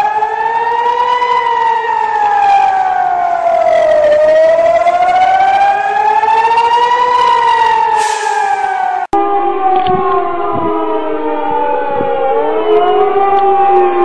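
Civil-defence air-raid siren wailing, its pitch rising and falling slowly in cycles of about six seconds, the warning of incoming rockets. After a sudden cut, several sirens at different pitches wail out of step with one another, with a few faint knocks.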